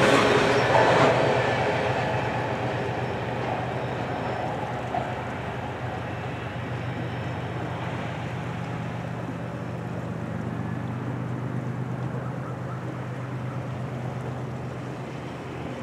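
Freight train cars rolling away on the rails just after the tail of the train has cleared the bridge. The wheel-and-rail noise fades steadily, leaving a steady low hum underneath.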